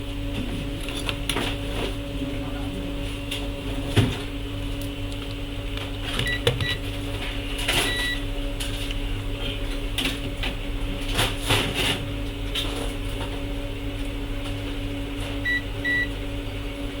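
Steady electrical hum at an electronics repair bench, with scattered clicks and taps of tools and short high electronic beeps from test equipment three times: about six seconds in, about eight seconds in, and near the end.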